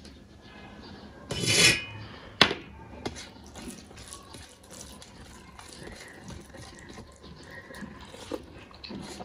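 Dal poured from a ceramic bowl onto rice on a metal plate in a short splashing rush, then a sharp clink as the bowl is set down. After that, fingers mixing the rice and dal against the plate make small scattered clicks and squelches, along with the sounds of eating.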